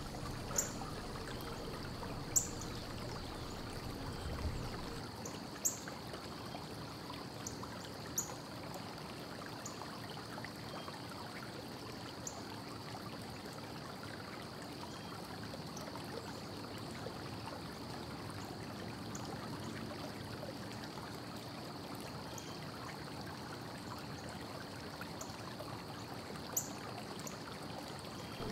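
Steady low hiss with a faint high steady tone, broken every few seconds by sharp light clicks of metal as small bolts and sheet-metal cage panels are handled and fitted.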